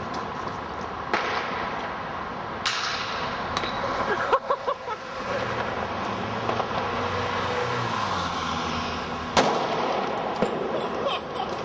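Firecrackers going off: several single sharp bangs, the loudest about nine seconds in, and a quick run of cracks around four to five seconds, over a steady background noise.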